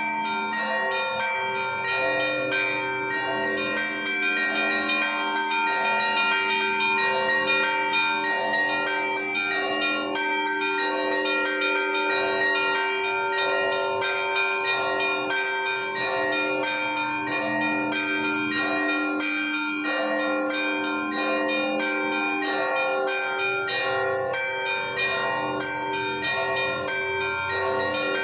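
Russian Orthodox church bells ringing a Sunday peal (voskresny zvon): many bells sound together, small bells struck in a quick, busy rhythm over the long ringing tones of larger bells, with no pause.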